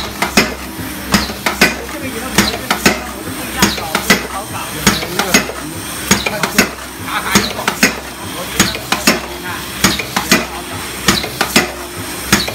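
Aluminium foil container making press running and stamping out containers: a rhythmic pair of sharp metallic knocks about every 1.2 seconds, over a steady hum. Light foil containers rattle and clatter between the strokes.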